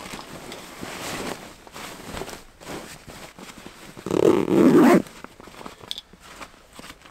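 Nylon backpack being handled, its fabric rustling, with a zipper pulled hard about four seconds in, the loudest sound, lasting about a second.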